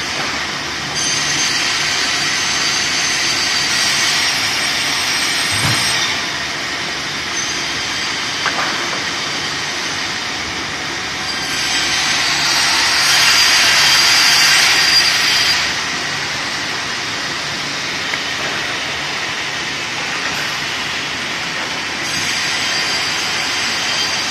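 Vertical band saws running steadily, with louder, hissing stretches about a second in, around the middle and near the end as a blade cuts through a log; a single knock a few seconds in.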